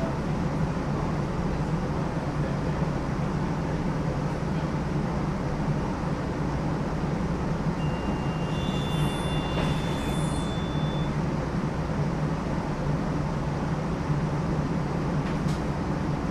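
New Orleans Canal Street streetcar running along its rails, a steady low hum and rattle, with two thin high squealing tones overlapping for a few seconds about halfway through.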